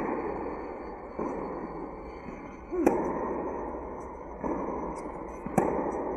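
Tennis ball struck hard with a racket at close range, twice, about three seconds apart, on forehands in a rally, each hit echoing through a large indoor hall. Softer, more distant hits from the other end of the court come between them.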